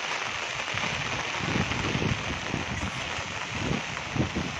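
Steady rain hissing, with gusts of wind buffeting the microphone in irregular low rumbles.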